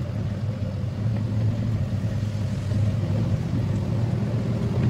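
Cargo truck's engine running as the truck drives slowly, heard from inside the cab: a steady low drone.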